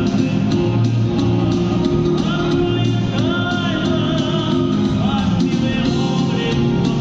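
Male tenor singing a Soviet-era retro pop song over instrumental accompaniment with a steady beat.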